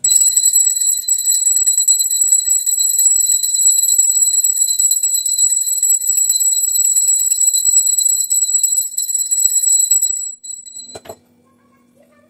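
Hand-held brass puja bell rung rapidly and continuously for evening prayer: a steady, loud, high ringing for about ten seconds that then stops, followed by a single knock.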